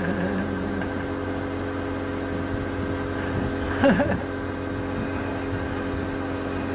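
A steady mechanical hum holding several fixed tones, with a short voice sound near the start and another, louder one about four seconds in.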